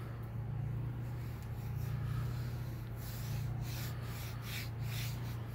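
A hand rubbing and pushing fine sawdust across a fresh-cut pine board, a series of short scrapes growing more frequent about halfway through, over a steady low hum.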